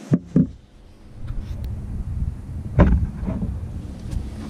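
Wind buffeting the microphone, a steady low rumble, with two sharp knocks near the start and a louder bump a little under three seconds in.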